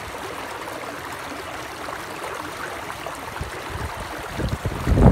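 Shallow creek rushing over rocks in a steady hiss. From about three and a half seconds in, wind buffets the microphone in low, uneven rumbles that are loudest near the end.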